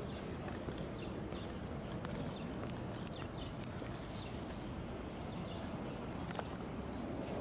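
Footsteps on stone steps and paving, a hard step about every half second, over a steady low background rumble.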